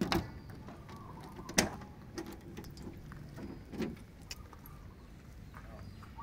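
A key turning in a Nissan Cefiro A31's boot lock, then a few sharp clicks and a duller knock as the boot latch releases and the lid is lifted open. The loudest click comes about a second and a half in.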